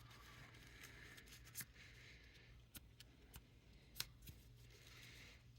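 Near silence with light handling of a folding knife and cleaning cloth: a few faint, sharp clicks, the loudest about four seconds in, and soft rubbing.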